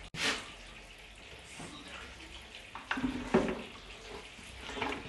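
Transmission fluid running and dripping as the oil pan is worked loose and lifted off a BMW 6HP19 automatic transmission, with a few knocks of the pan against the case, the loudest about three and a half seconds in.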